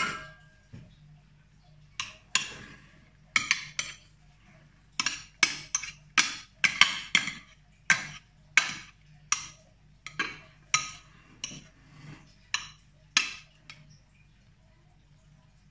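Metal spoon knocking and scraping against a glass baking dish as a grain salad is stirred: a run of sharp, irregular clinks, about two a second, from about two seconds in until near the end.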